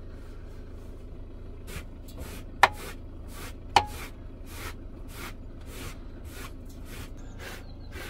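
Rubber pet-hair brush scrubbing over rug and bedding in short repeated strokes, about two to three a second, pulling out dog hair. Two sharp knocks, the loudest sounds, come between the strokes early on.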